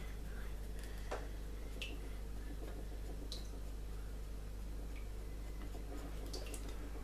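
Pencil hatching on drawing paper: a few short, faint scratchy strokes, spaced irregularly, over a steady low hum.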